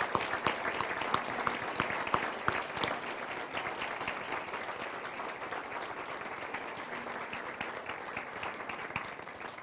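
Audience applauding, many hands clapping together, slowly dying down toward the end.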